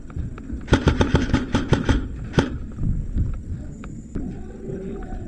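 A rapid string of sharp clacks, about eight a second, starting a second in and lasting a little over a second, followed by one more clack, over a low rumble of movement.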